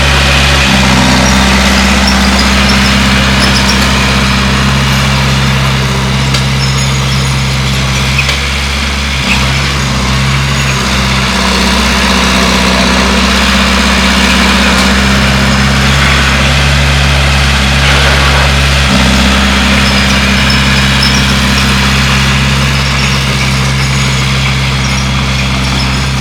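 Bulldozer's diesel engine running steadily and loud, its note shifting down and back up a few times, over a clatter of machine noise.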